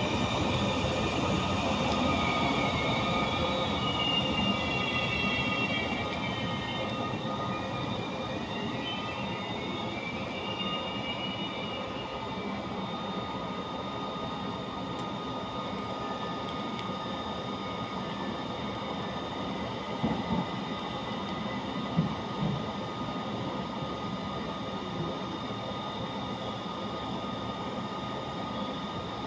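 Passenger train moving slowly at a station, with wheels or brakes squealing in shifting tones through the first ten seconds or so. The sound then settles into a steady hum from the train's equipment, with a couple of short knocks about twenty seconds in.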